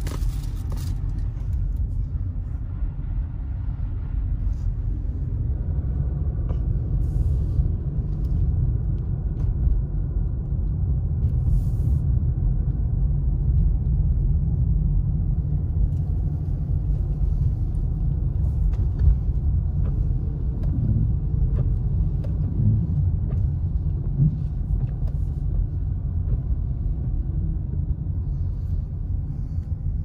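Steady low rumble inside a moving car: engine and tyres running over a snow-covered road.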